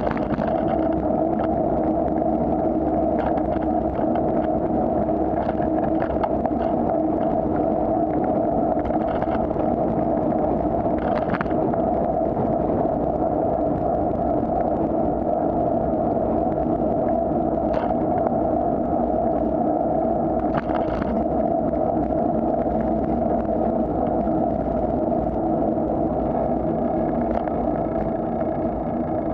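Steady, muffled rumble of wind and road noise from a moving bicycle, with a few brief knocks from bumps in the road about a third and two thirds of the way through.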